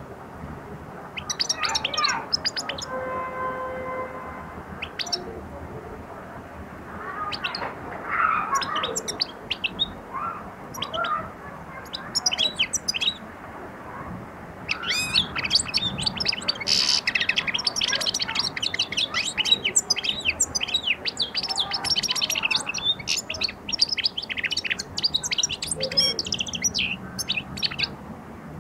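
European goldfinch (Algerian chardonneret) twittering. It gives scattered short bursts of chirps at first, then about halfway through breaks into a fast, continuous twittering song that runs on, typical of a bird coming into song.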